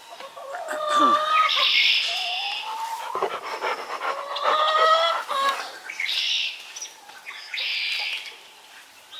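Chickens clucking, with several short, harsh, loud squawks among the calls.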